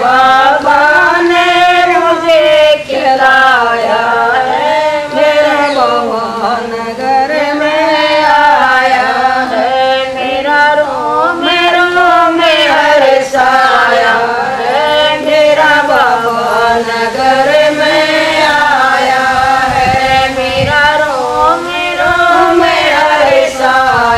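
Women's voices singing a Haryanvi Shiv bhajan together, a continuous chant-like melody with long wavering notes.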